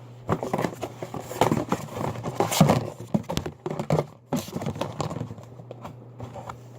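Hands working at a plastic slime container, a run of irregular clicks, taps and scrapes as the tight lid is prised open.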